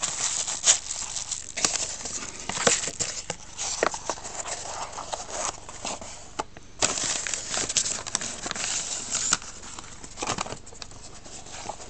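Plastic bubble wrap and paper wrapping crinkling and rustling as they are handled, with small knocks; the densest crinkling comes in two long spells, the second, about seven seconds in, the loudest.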